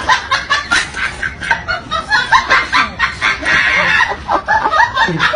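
A rapid string of short animal calls, several a second.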